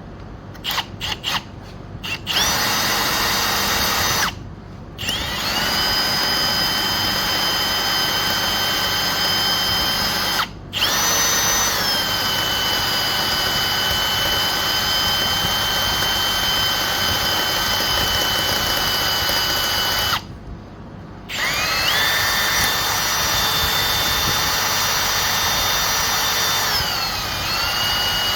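Electric drill whining steadily, boring a pilot hole into a seized screw to take a screw extractor. A few quick trigger blips at the start give way to long runs broken by three short stops, and the pitch dips and recovers near the end as the bit loads up.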